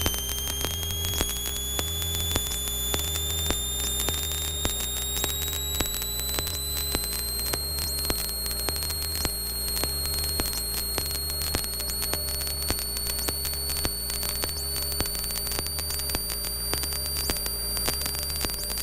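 Light aircraft cockpit sound with a steady low engine drone under a high whine. The whine rises slowly in pitch over the first eight seconds or so, then holds steady, with constant crackling static throughout.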